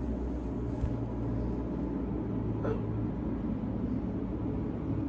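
A single short hiccup about two and a half seconds in, over a steady low hum.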